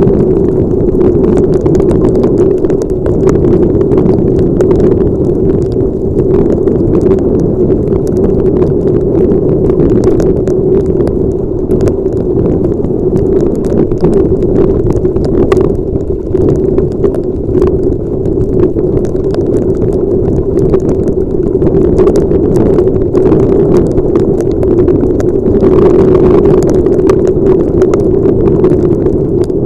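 Motorcycle ride in heavy rain heard through a helmet camera's microphone: a loud, steady rush of wind and riding noise, with many sharp ticks scattered through it, typical of raindrops striking the helmet and camera.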